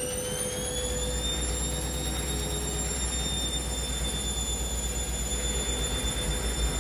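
Washing machine spinning up: a motor whine rises in pitch over the first two seconds, then holds steady at speed over a low rumble of the drum.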